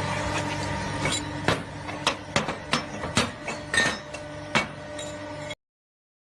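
A hydraulic punching and shearing machine's pump motor running with a steady hum, with a series of sharp metallic clanks from about a second in as the machine works the metal. The sound cuts off abruptly near the end.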